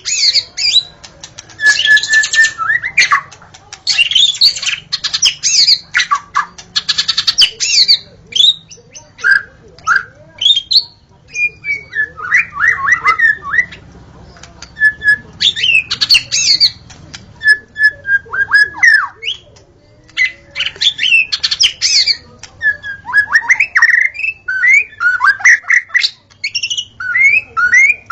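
White-rumped shama singing: a rapid, varied run of clear whistles, fast trills and harsh scratchy notes, delivered in phrases a second or two long with short pauses between them.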